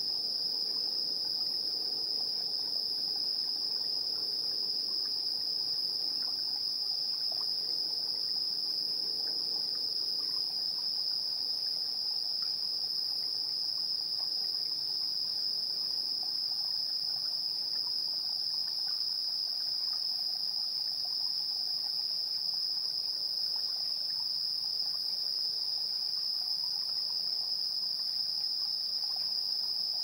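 Singing insects at night making one steady, unbroken high-pitched trill.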